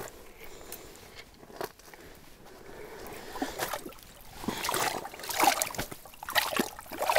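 Water sloshing and splashing in a round ice-fishing hole as a hooked lake trout is brought to the surface and thrashes, then is taken by hand. The splashes are irregular and grow louder in the second half.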